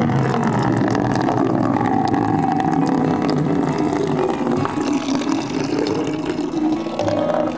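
A stream of water pouring from a spout into a plastic bucket, filling it steadily.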